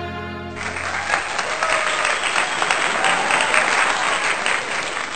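Background music ends about half a second in, and a crowd takes over, applauding.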